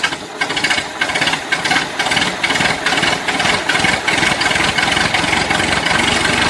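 An engine running, loud and steady with a fast even beat.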